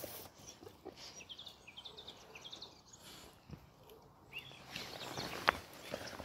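A bird chirping in a quick series of short rising notes, over soft rustles and clicks of a dog nosing through grass, with one sharp click near the end.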